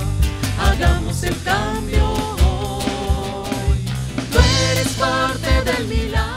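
Upbeat background song: a singing voice over a steady drum beat.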